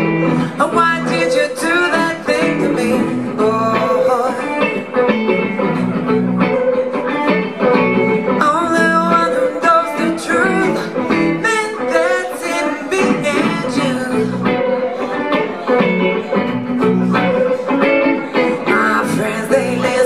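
A woman singing into a microphone, accompanied by an electric guitar.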